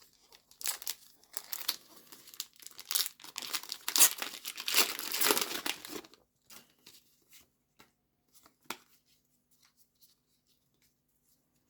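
Foil wrapper of a Pokémon TCG Paldea Evolved booster pack being torn open and crinkled, busiest for the first six seconds, then only a few light ticks.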